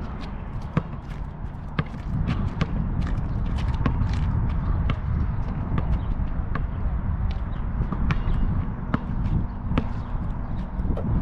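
A basketball bouncing on an asphalt court, with irregular sharp knocks as it is dribbled and bounce-passed, along with sneaker steps. Underneath is a loud, uneven low rumble.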